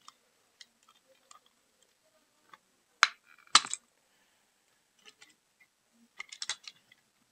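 Small plastic clicks and knocks from the broken pieces of a PlayStation 2 controller being handled, with two sharp knocks about half a second apart three seconds in and a quick run of clicks near the end.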